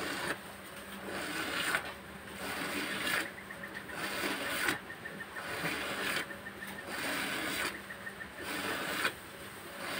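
Hand-milking: jets of milk squirting from the teats into a bucket of frothy milk, a rhythmic hissing swish about once a second as the teats are pulled in turn.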